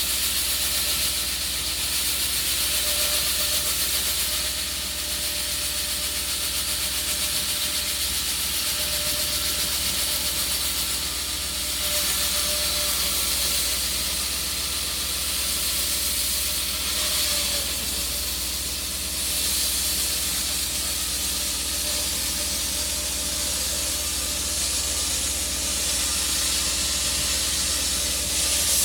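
Concrete saw cutting through thick concrete: a steady hissing noise with a faint whine that wavers slightly in pitch.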